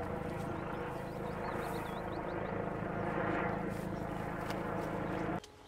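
Helicopter running with a steady engine drone and fast rotor chop, cutting off suddenly near the end.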